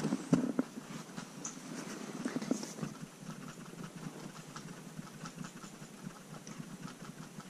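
Faint rustling with scattered small clicks: handling noise from clothing and fishing gear close to the microphone.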